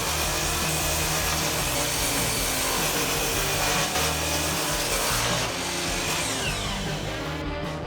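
Power tool running on wood, steady and noisy, then slowing down near the end with a falling pitch.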